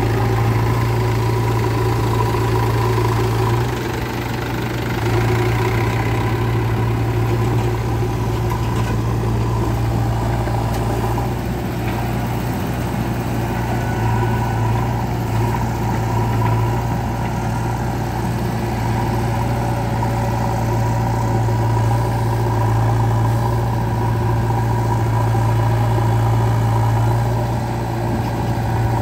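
JCB 3DX backhoe loader's diesel engine running under work as it digs and loads mud, a steady low drone that dips briefly a few times.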